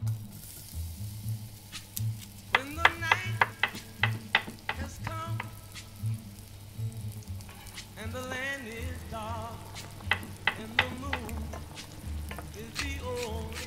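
A kitchen knife chopping garlic on a wooden cutting board: a run of quick sharp chops, about three a second, a few seconds in. Under it is the sizzle of tomato sauce frying and being stirred in a pot, with background music that has a soft low beat.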